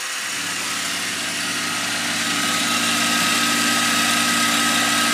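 CNC milling machine started on cycle start: the spindle and drive come up to speed and run steadily, a hum with a thin high whine that swells over the first couple of seconds and then holds.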